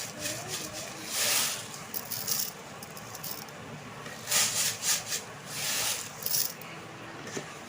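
Metal spatula scraping and stirring fried rice in a frying pan, in short scratchy bursts about a second long, as sugar is worked into the rice.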